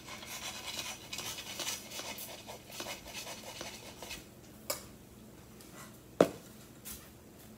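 Dry tapioca starch and baking powder poured from a stainless-steel bowl into a metal mesh sieve: a soft scratchy rustle with light metal clinks of bowl against sieve. About six seconds in, a single sharp clunk as the steel bowl is set down on the stone counter.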